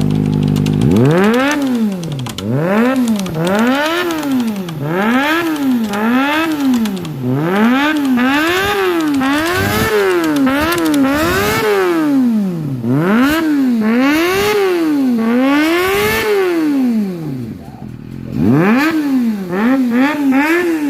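Kawasaki ZX-25R's 250 cc inline-four idling for a moment, then revved repeatedly through an aftermarket exhaust, the pitch climbing and falling with each blip of the throttle, about a dozen revs in a row. It drops back briefly near the end before a few quicker blips.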